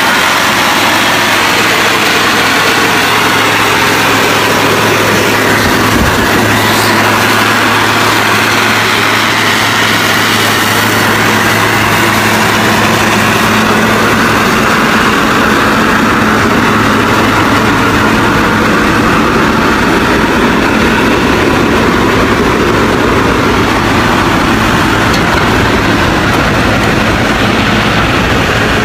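Engine of a loaded Ford Canadian Military Pattern log truck running steadily under load, a loud continuous drone with road and chassis noise. Its note shifts higher about halfway through.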